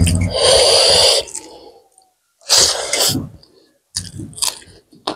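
A woman sneezes loudly, about a second long, and sneezes again about two and a half seconds in, followed by faint chewing sounds near the end.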